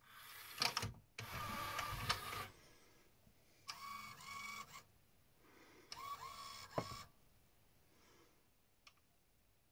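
Pioneer CLD-2950 LaserDisc player's disc-loading motor driving its plastic gear train: four short whirring runs of about a second each, with a whine in them, the last ending in a sharp click.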